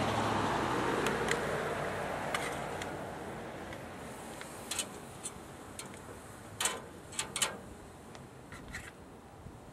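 Scattered sharp clicks and taps as chicken wings are set by hand onto the metal grill grate of a reverse-flow smoker, over a soft hiss that fades during the first few seconds.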